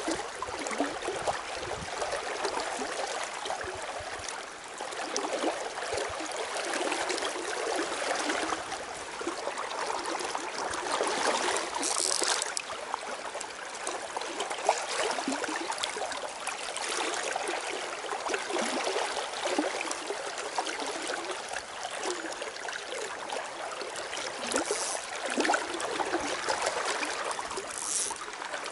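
River current running steadily, a continuous wash of moving water. A brief high hiss rises over it about twelve seconds in and again near the end.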